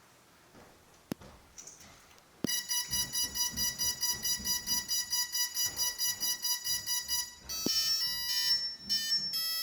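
Electronic beeping from the brushless drone motors' speed controllers (ESCs), sounding through the motors. It starts about two and a half seconds in as a rapid, steady run of high beeps, several a second. Near the end it changes to a series of tones stepping in pitch.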